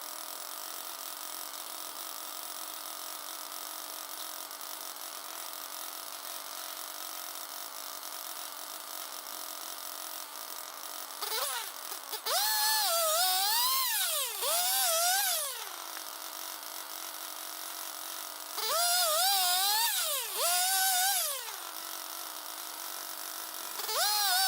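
Swing sawmill running, its circular blade spinning with a steady whine, then from about halfway three loud stretches of cutting where the whine dips and rises in pitch as the blade loads in the log. The new thin-kerf blade is not yet adjusted right and leaves a rough cut.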